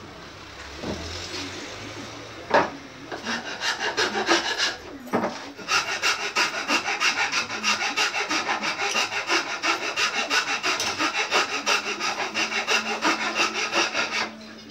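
A hand tool scraping back and forth over wood in fast, even strokes, about three a second, as a piece is shaped by hand. A sharp knock comes about two and a half seconds in, before the strokes begin.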